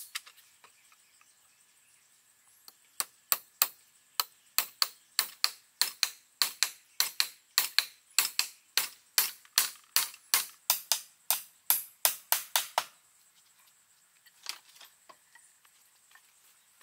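A steady run of sharp, quick strikes, about three a second, from a hand tool hitting something hard; it starts about three seconds in and stops about ten seconds later.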